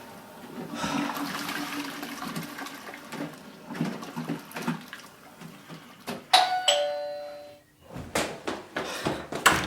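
Water rushing and running for several seconds, then a two-note ding-dong doorbell about six seconds in, followed by a few sharp knocks or thumps.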